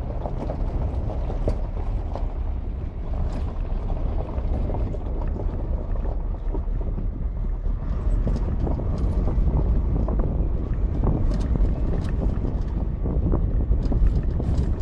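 Wind buffeting the microphone in the open back of a moving pickup truck, over the steady low rumble of the truck driving down a rough dirt track, with scattered knocks and rattles.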